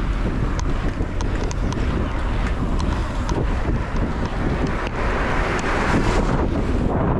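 Steady wind buffeting the microphone of a bike-mounted camera while riding along a road, with a few faint high ticks.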